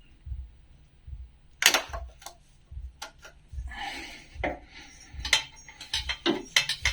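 Metal hand tools and engine parts clinking and clanking during timing-belt assembly, with a handful of sharp metallic knocks, the loudest about a second and a half in and several more near the end.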